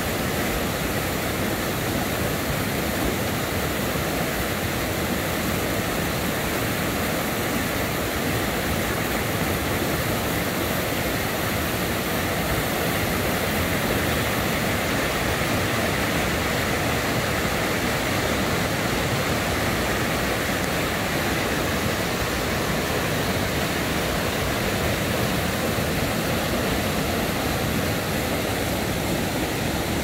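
Small mountain-stream waterfalls cascading over rock ledges into a pool: a steady, unbroken rush of water.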